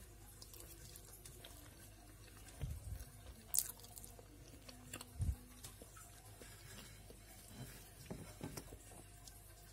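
Faint room tone with a few scattered soft knocks and a sharp click, then light taps and scrapes near the end as a metal fork cuts into a pancake on a ceramic plate.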